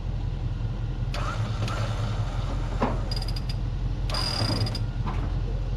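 An engine running steadily while a machine lifts a truck's front clip and motor, with short metallic creaks and clicks and a high squeal lasting under a second, about four seconds in.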